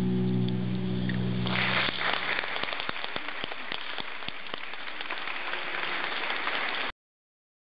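Audience applauding, a dense crackle of many hands that comes in as sustained music tones fade out about a second and a half in, then cuts off abruptly near the end.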